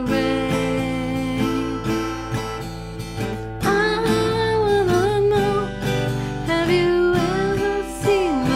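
Music: a strummed acoustic guitar with a melody line gliding over it.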